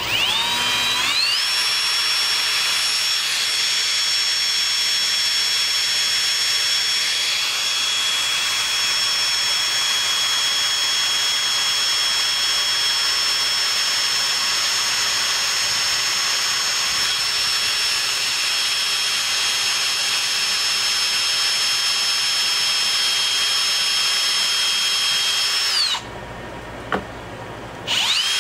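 Cordless drill boring a hole through an oak handle. The motor spins up with a rising whine, then runs steadily under load. It stops about two seconds before the end, blips briefly, and starts up again.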